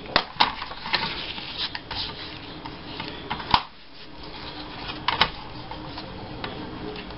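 A plastic paper trimmer being handled and set down on a table, with paper sliding and scattered light clicks and knocks; one sharper knock comes about three and a half seconds in.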